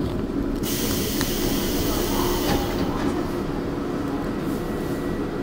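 Seoul Metro Line 2 subway train running, heard from on board as a steady low rumble, with a hiss over it from about half a second in to about three seconds.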